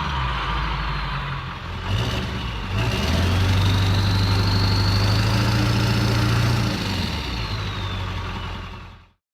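7.3 Powerstroke turbo-diesel V8 of a 2000 Ford Excursion held at a steady raised throttle, heard through its exhaust: first with the straight-piped cutout, then, after a short break about two seconds in, through a 4-inch Diamond Eye exhaust with muffler. A faint turbo whistle rises and falls over the steady engine note, the engine settles back toward idle about seven seconds in, and the sound cuts off just before the end.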